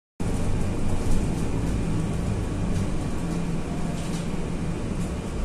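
Moving city bus heard from inside the passenger cabin: steady engine and road noise, heaviest in the low end.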